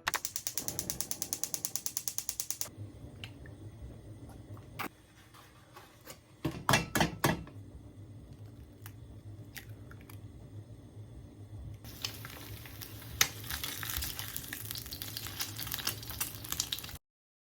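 Rapid, evenly spaced mechanical clicking, about nine clicks a second for nearly three seconds, then scattered clicks and a few louder knocks, with a hiss in the last few seconds before the sound cuts off.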